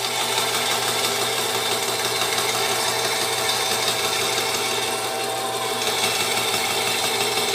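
Craftsman 10-inch direct-drive bandsaw running and cutting through a wooden board: a steady motor hum under an even cutting noise.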